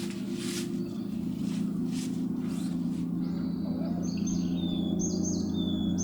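A small bird singing, repeated quick high notes that sweep downward, each set followed by a thin whistle, starting about halfway through. Under it runs a steady low hum, and a few short rustling bursts come in the first seconds.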